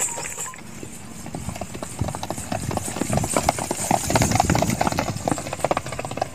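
Horses galloping on dry, hard dirt: rapid, rhythmic drumming of hoofbeats that builds to its loudest around the middle and then eases off.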